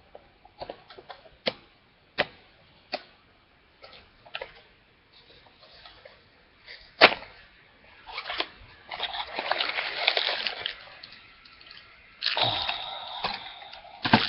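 Plastic toy packaging being handled and opened: scattered sharp clicks and taps, then crinkling and rustling plastic from about eight seconds in, with a brief pause before it resumes.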